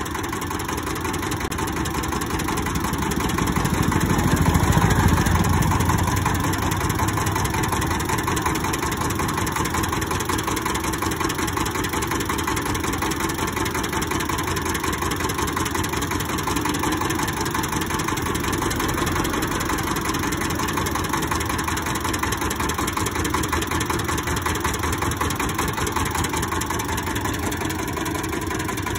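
Small engine of a cart-mounted sugarcane juice crusher running steadily and driving the crushing rollers. It swells louder for about two seconds, around four seconds in.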